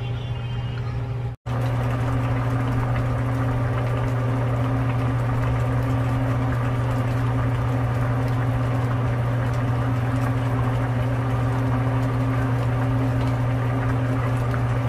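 Beef and vegetable soup bubbling at a boil in a wide pan, over a strong steady low hum.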